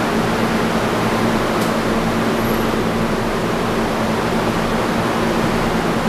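An R32 subway train standing at the platform, its air-conditioning and onboard equipment giving a steady low hum under a rush of noise.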